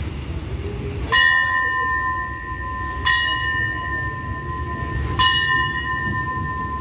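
A station bell struck three times, about two seconds apart, each stroke ringing on with a clear two-note tone, over the low rumble of the train pulling out.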